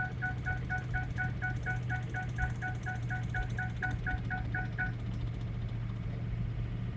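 A rapid electronic warning chime in the tow truck's cab, about five short beeps a second, stops about five seconds in. Under it the truck's diesel engine runs with a steady low drone. The truck has a shorted injector and is losing power.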